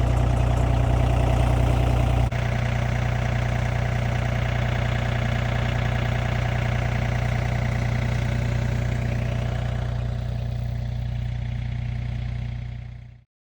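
An engine running steadily with a strong low hum, which cuts off abruptly near the end.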